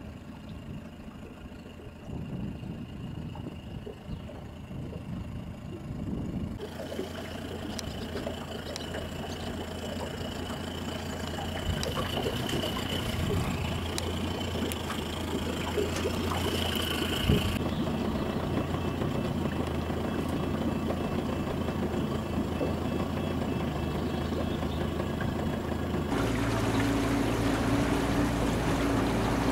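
A boat's engine running steadily at low revs. Near the end the engine gets louder, with a stronger, higher hum, as the boat moves through the lock chamber.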